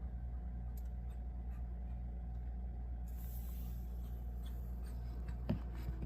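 Open refrigerator humming steadily, while a cat sniffs and rustles among its contents with faint scratchy ticks and a brief breathy hiss about halfway through. A single light knock comes near the end.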